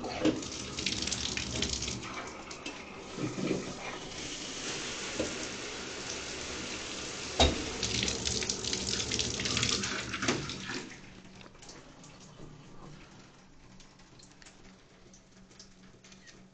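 A faucet running into a sink for about eleven seconds and then shut off, with a sharp knock about seven seconds in. Faint ticks follow once the water stops.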